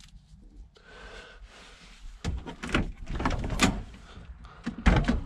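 A van's rear door being unlatched and swung open: a run of metal clicks and rattles from about two seconds in, then a louder knock near the end.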